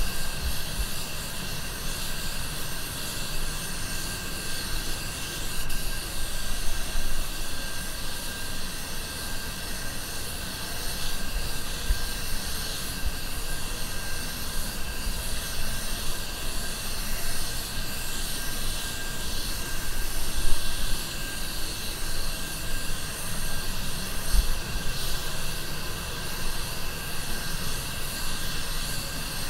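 Steady hiss of compressed air through an Anest Iwata WS400 Supernova 1.3 spray gun spraying base coat paint, swelling and easing a little as the gun passes along the panel.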